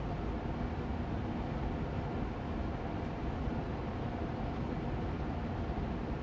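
Austin Air Allergy Machine air purifier fan running steadily on medium speed: an even rush of air with a low hum and faint steady tones.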